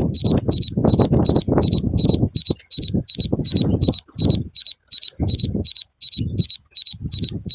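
DJI Fly app warning alarm beeping on the phone, a short high tone about three times a second, sounding because of a strong-wind warning: the Mavic Mini cannot fly stably. Under it, wind gusts buffet the phone's microphone in irregular rumbles.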